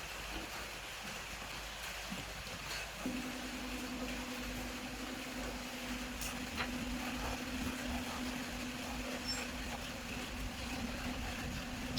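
A steady low mechanical hum starts about three seconds in and holds, over a faint hiss, with a few light clicks.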